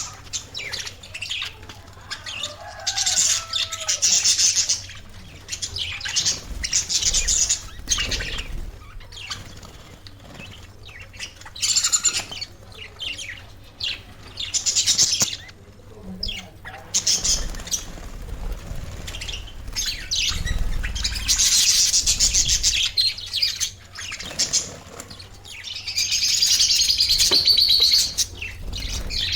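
Pet budgerigars chirping and chattering in repeated bursts of high, rapid warbling, with short quieter gaps between them.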